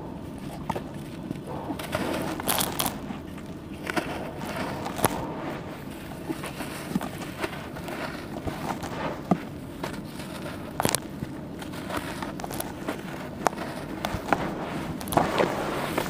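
Soaked charcoal slabs crumbled and mashed by hand in a tub of water: wet, gritty crumbling with irregular sharp crackles and clicks as pieces break apart.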